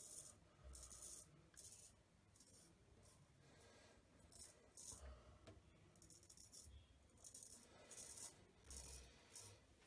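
Custom 7/8 straight razor with an N690 steel blade scraping through a lathered beard in a series of short, crisp strokes, about one to two a second. The blade cuts smoothly, without pulling.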